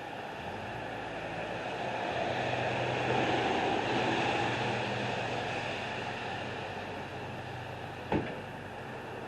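A motor vehicle passing by, its engine hum and road noise swelling to a peak and then fading. A single sharp knock comes near the end.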